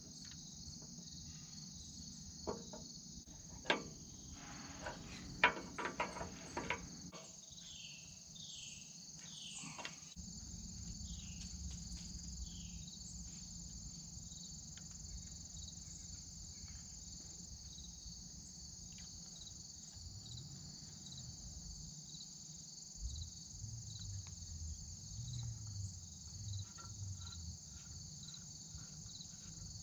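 Steady high chorus of insects calling, with several sharp metallic clinks in the first seven seconds as hydraulic fittings are handled at the valve.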